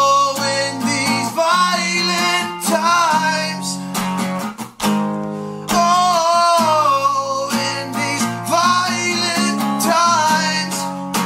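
Fender acoustic guitar strummed in a steady rhythm, with a man singing long, wavering held notes over it.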